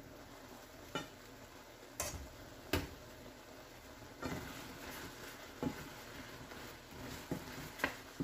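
Halved button mushrooms sizzling steadily in kalbi marinade and their own released liquid in a skillet. A wooden spoon stirs them, knocking sharply against the pan about once a second at irregular intervals.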